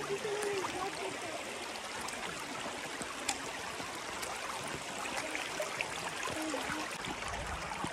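Shallow river running over rocks and stones, a steady trickling rush, with a single sharp click about three seconds in.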